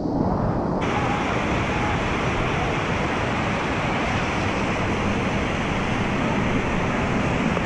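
Waterfall rushing steadily: a loud, even roar of falling water.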